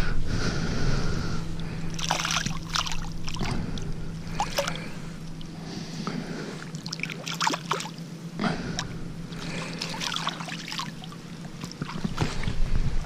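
Water splashing and trickling as a wire-mesh keepnet is hauled up out of the shallows by its rope and let back down, in a run of short, irregular sloshes and drips.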